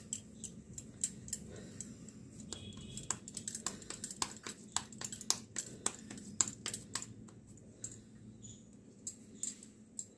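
Bangles on both wrists clicking against each other in quick, irregular light ticks, several a second, as the hands press and shape a ball of maize-flour dough.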